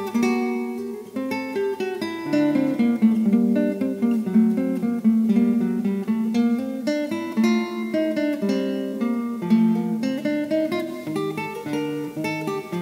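Background music: a tune of quickly plucked acoustic guitar notes.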